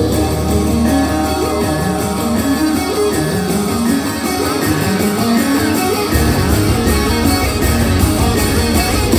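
Rock band playing live, electric guitar to the fore over bass and drums. The low end gets heavier about six seconds in.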